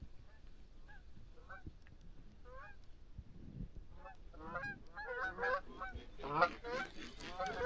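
A flock of geese honking: many short calls, sparse at first, then louder and more frequent over the last few seconds.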